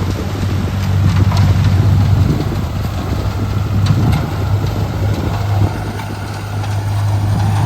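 Engine of road-construction machinery running steadily with a low, even hum, with a few light clicks over it.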